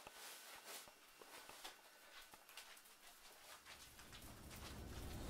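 Near silence with faint soft taps and rustles, then a low rumbling drone that begins swelling about four seconds in.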